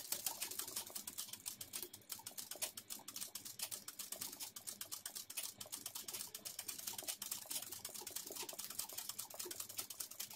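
Ordinary domestic sewing machine stitching steadily, its needle mechanism clicking in a rapid, even rhythm while free-motion fill embroidery is sewn.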